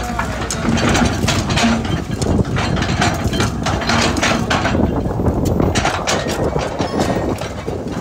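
Komatsu PC200 hydraulic excavator digging: its diesel engine runs under a steady low rumble while the bucket scrapes and scoops through loose soil, with repeated knocks and clatter of earth against the bucket.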